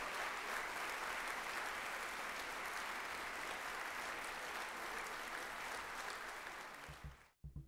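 Audience applauding steadily, stopping about seven seconds in, followed by a few short low thumps.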